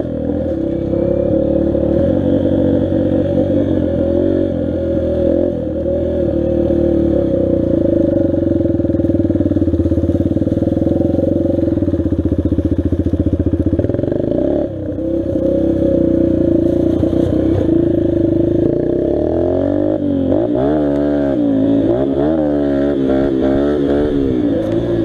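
Dirt bike engine running as the bike is ridden, its pitch shifting with the throttle. About halfway through it dips briefly, and in the last few seconds it revs up and down quickly several times.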